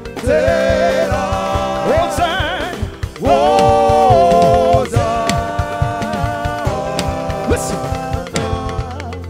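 Live gospel praise music: a voice sings long held notes with vibrato over a band with bass and drums.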